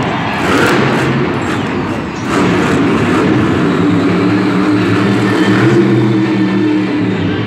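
Monster truck's supercharged V8 engine revving hard. The engine note becomes steadier and clearer about halfway through as the truck drives on all four wheels.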